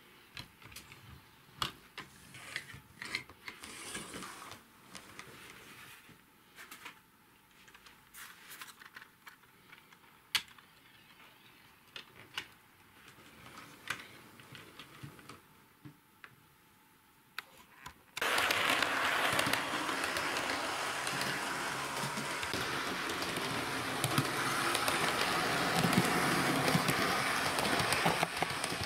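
Light clicks and taps of plastic model coaches being set onto the rails with a rerailer ramp. About 18 seconds in the sound switches abruptly to the steady running noise of a Hornby 2-HAL OO-gauge model train moving along the track: motor hum and wheels on the rails.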